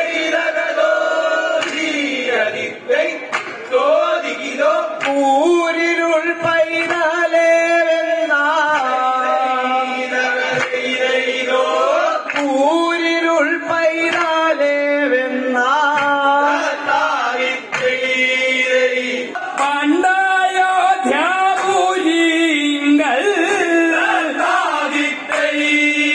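Group of men singing a vanchipattu, the Kerala snake-boat song, together through a loudspeaker system, clapping in time.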